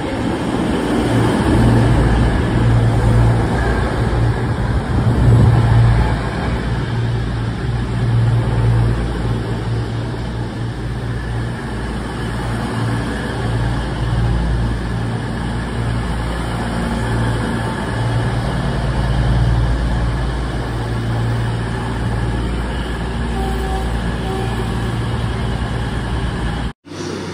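CrossCountry diesel train running alongside the platform, its engines giving a steady low drone that swells and eases. The sound cuts out briefly near the end.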